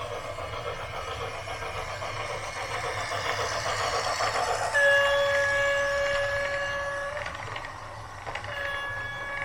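Rhythmic mechanical clatter growing steadily louder, then a long single-pitched horn blast about halfway through, lasting a couple of seconds, and a second blast starting near the end.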